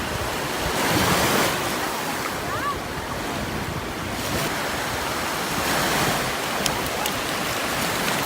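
Sea waves breaking and washing up on a beach, swelling about a second in and again near six seconds, with wind buffeting the microphone.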